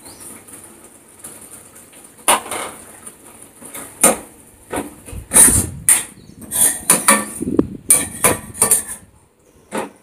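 Metal spoon stirring thick tomato masala gravy in a frying pan, knocking and scraping against the pan with irregular clinks, coming more often in the second half.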